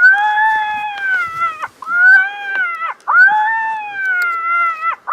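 Electronic predator caller playing a recorded animal call: three long, wavering cries of near-identical shape, each dropping away sharply in pitch at its end.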